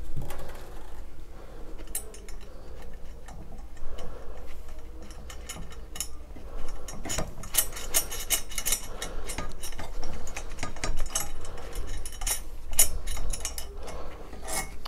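Small metal clicks and clinks of clamp hardware as a nut is fitted onto a bolt through a chainwheel and handwheel, becoming a run of rapid ticking in the second half.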